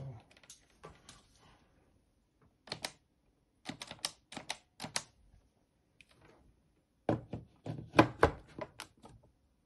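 Short plastic clicks from buttons pressed on a touch-tone desk phone's keypad, in a quick run a few seconds in. Near the end come louder knocks as the phone handset is pushed down into a 3D-printed plastic acoustic coupler.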